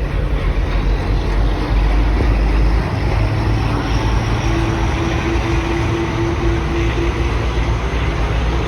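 WDG3A diesel locomotive engine running with a heavy, steady low rumble. A steady hum sets in about halfway through, and a faint high whine rises slowly over the second half.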